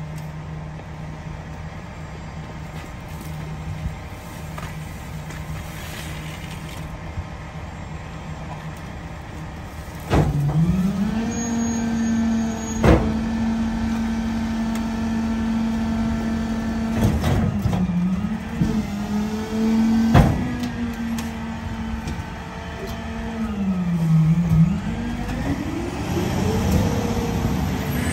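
Garbage truck's diesel engine idling, then about a third of the way in stepping up to a higher steady speed as the McNeilus rear loader's hydraulic packer runs a compaction cycle on a hopper of Christmas trees, with a few sharp knocks. Near the end the engine drops back briefly, then speeds up again.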